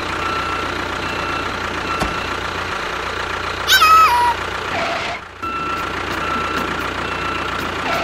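Dubbed vehicle sound effects: a truck's reversing alarm beeps over and over above a steady low engine hum. About four seconds in, a short cartoon-like sound falls in pitch in steps; it is the loudest moment.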